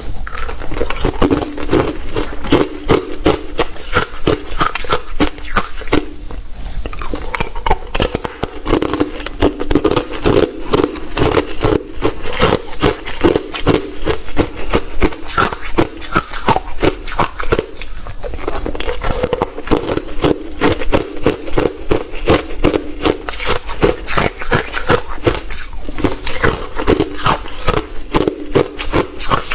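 Close-up chewing of hard refrozen crushed ice: rapid, continuous crunching, several crunches a second, in a steady rhythm.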